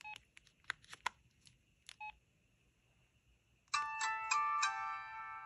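LG Cosmos 3 cell phone: a few short keypad beeps, then from about four seconds in, its Verizon power chime, several tones sounding together in a short melody.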